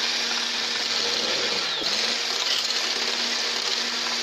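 Handheld electric frother whisking instant coffee, sugar and water in a plastic tumbler, whipping it into a foam: a steady motor hum with the whisk's whirr, its pitch dipping briefly a little under two seconds in.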